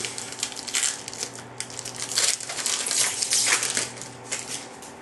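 Foil wrapper of a 2010-11 Upper Deck Ultimate Collection hockey card pack crinkling and crackling as it is torn open and peeled off the cards, a run of crackles that dies away near the end.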